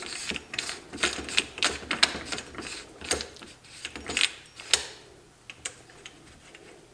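Quick, irregular light metal clicks and scrapes of an AR-15 buffer tube being screwed by hand into the lower receiver's threads. The clicks come thick for about five seconds, then thin out.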